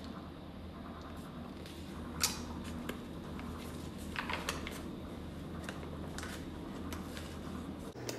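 Steady low hum of a running kitchen appliance, with a few light clicks and rattles of things being handled.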